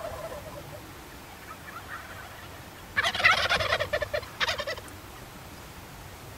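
Wild turkey tom gobbling once about three seconds in, a loud rapid rattling call lasting under two seconds.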